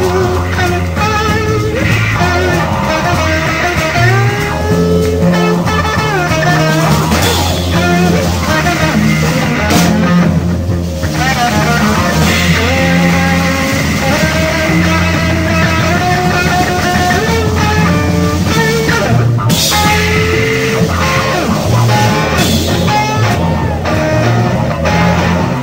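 A rock band playing live, an instrumental stretch with a lead melody line over a steady bass and beat, with no singing.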